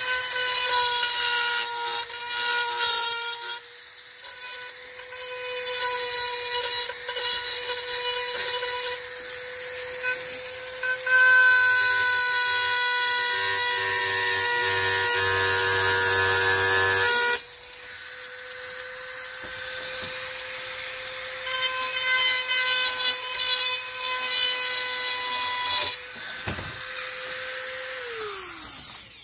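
Dremel rotary tool running with a steady high whine as its bit grinds into the cracks of a cast aluminum chainsaw side cover, roughening them for JB Weld. The grinding rasp comes and goes in several stretches as the bit is pressed to the metal. Near the end the motor is switched off and its whine falls away as it spins down.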